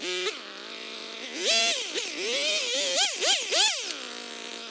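Husqvarna 445 two-stroke chainsaw idling, then revved in about five quick throttle blips, each rising and falling in pitch, before settling back to idle near the end.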